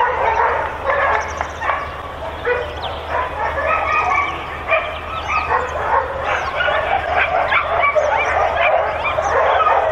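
Many boarding-kennel dogs barking and yipping at once, their calls overlapping without a pause.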